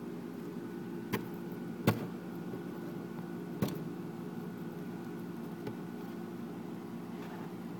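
Steady mechanical hum with a few even pitches in it, broken by three short sharp knocks, the loudest about two seconds in.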